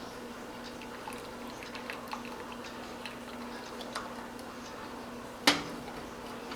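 Kitchen handling sounds: scattered light clicks and ticks, then one sharp knock that rings briefly about five and a half seconds in, over a steady low hum.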